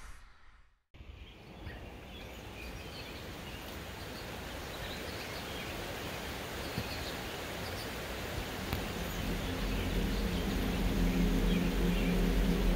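Forest creek ambience: a steady rush of flowing water with faint, short bird chirps, starting after a brief silence about a second in and slowly growing louder. From about nine seconds in, a low steady hum of several tones comes in under it.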